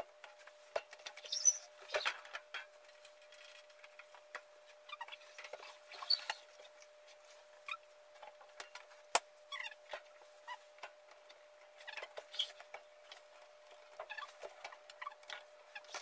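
Scattered light clicks, taps and scrapes of an under-counter glass-door refrigerator being handled and fitted into a bar cabinet, with one sharper click about nine seconds in, over a faint steady hum.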